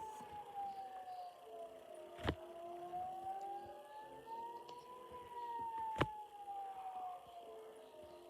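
Civil defense warning siren wailing, its pitch sweeping slowly up and down over a cycle of about six seconds. Two sharp clicks stand out, about two and six seconds in.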